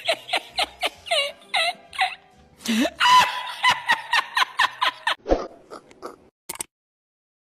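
A man singing a wordless vocalise over backing music, in short gliding notes and a longer held, rising phrase; it breaks off about five seconds in.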